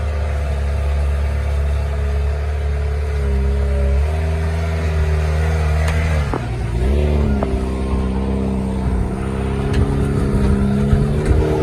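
Rock-crawler buggy's engine running under load as it climbs, its revs stepping up and down, with a brief drop and pickup about six seconds in. A few sharp clicks are heard over it.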